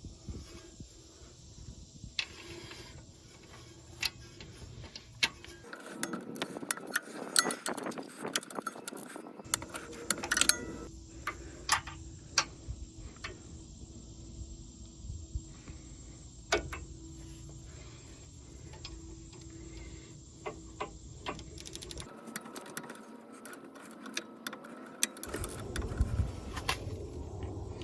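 Irregular clicks and metallic knocks of hand tools working on brake parts, over a low steady background that changes abruptly several times.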